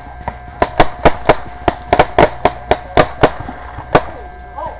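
Paintball markers firing, a rapid uneven string of sharp pops, well over a dozen shots in about four seconds, stopping near the end.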